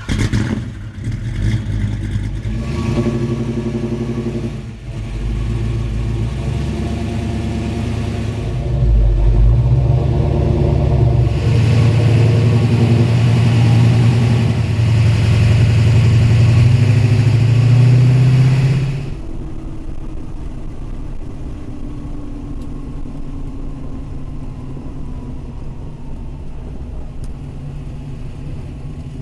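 Classic Mopar car's engine running and revving up, its pitch rising, then dropping off suddenly about two-thirds of the way through to a quieter, steady run with a faint falling whine.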